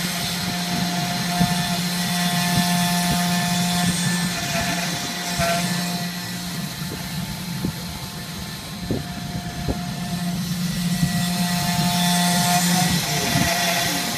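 ShapeOko CNC router's spindle running and its end mill cutting into a wooden board, giving a steady low hum with a higher whine over it. The whine weakens for a couple of seconds in the middle, and a few sharp ticks come just before it returns.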